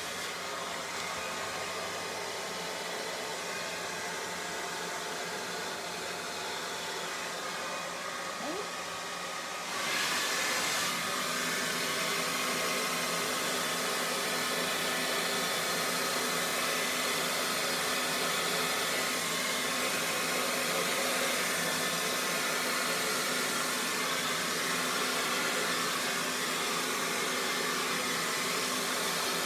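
Handheld hair dryer blowing steadily on wet acrylic paint on a glass pane, pushing the paint across in a Dutch pour. About ten seconds in it gets louder and brighter, then holds steady.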